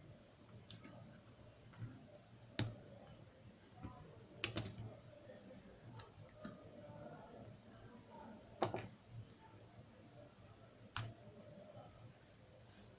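A handful of sharp, irregularly spaced clicks and taps from small tools and plastic phone parts being handled, over a faint low background hum.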